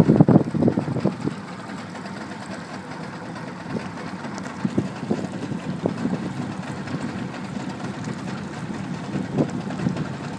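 Wind buffeting the microphone in irregular gusts over a steady low rush, strongest in the first second and again near the end.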